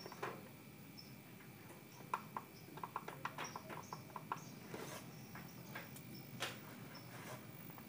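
Front-panel push buttons on a Polytron CRT television being pressed, a run of quick small clicks, about four a second, in the middle, with a few single clicks later.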